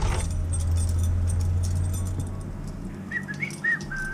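A cast-iron radiator's bleed valve spitting air and water while a hot-water heating system is refilled and bled, the sign that the radiator is filling. A low rumble runs through the first half, and a few short high squeaks come near the end.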